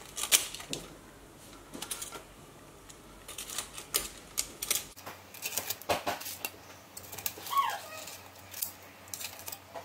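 Metal kitchen tongs clicking and scraping against the Instant Pot Duo Crisp's air fryer basket as pieces of air-fried chicken are picked up: scattered sharp clicks a second or more apart.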